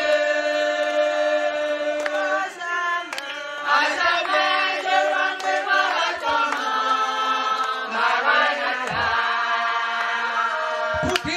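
A group of men and women singing together, holding long notes.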